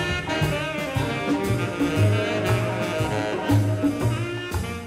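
Background jazz music with horns over a steady drum beat.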